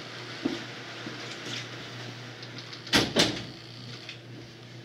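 A wooden door closing: two sharp knocks in quick succession about three seconds in, with a few lighter clicks, over a steady low hum.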